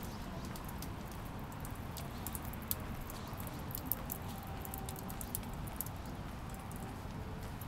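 Light rain pattering, scattered drops ticking over a steady low background hiss, the drops thickest in the middle.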